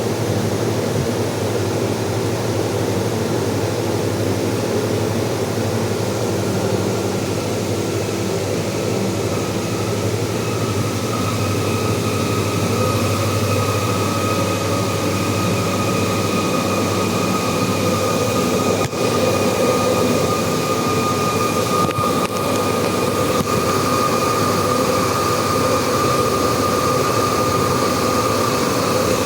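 Steady rushing water noise with a low hum from the water pump in the unit's plumbing; about eight seconds in, a high-pitched whistle starts and grows louder, holding one steady note with a fainter higher overtone. The owner says the whistling sets in when the pump stops.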